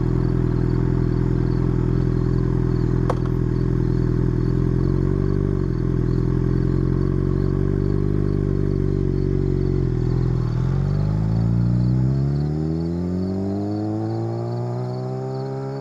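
Sport motorcycle's inline-four engine running at a steady pitch, dipping briefly twice, then rising steadily in pitch as it accelerates through the revs over the last few seconds.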